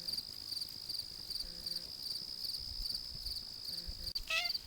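Crickets chirping steadily in a fast, evenly repeating pulse. A cat gives one short meow near the end.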